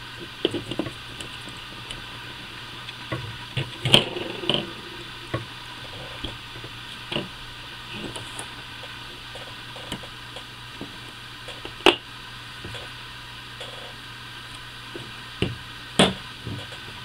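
Scattered clicks and taps of small metal air-rifle parts being handled and fitted by hand, with the sharpest knocks about 4, 12 and 16 seconds in, over a steady low hum.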